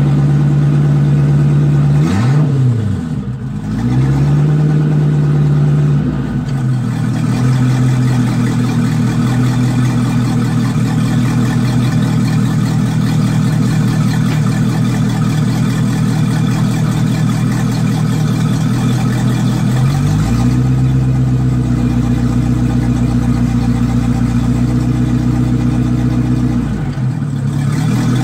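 Volvo Penta stern-drive boat engine running out of the water on a garden-hose feed, its exhaust blowing out through the propeller hub. It runs at a raised speed, dips and comes back up about two seconds in, then settles to idle around six seconds. It is revved again at about twenty seconds, held for several seconds, and falls back to idle near the end.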